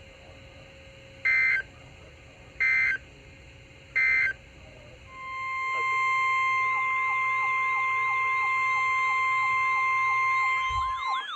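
NOAA Weather Radio alert signal: three short two-pitch data bursts of the SAME alert header about a second and a half apart, then, from about five seconds in, the steady 1050 Hz warning alarm tone. A faster warbling tone rises and falls over it from about six and a half seconds. Together these mark the start of a new warning broadcast.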